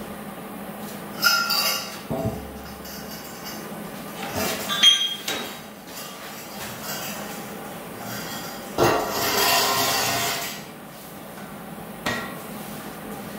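Welded steel pipe frame clanking against the concrete floor as it is tipped up and stood upright: sharp metal clanks about a second in and again around four to five seconds, then a longer scraping clatter about nine seconds in.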